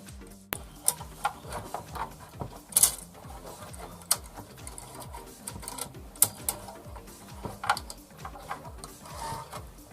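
Irregular clicks and taps of small plastic and metal parts being handled while new carbon brushes are fitted into a mixer grinder's motor, with a couple of sharper knocks about three and six seconds in.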